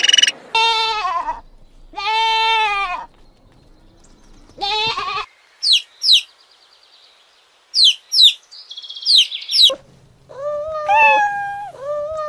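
A run of animal calls: three drawn-out calls in the first five seconds, then a baby chick peeping in short, sharply falling high cheeps in two groups, then a cat meowing several times near the end.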